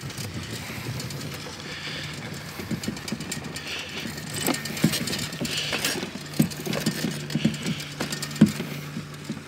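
Bicycle ridden over a bumpy sand track, its frame and parts rattling and knocking at irregular moments, over a steady low hum.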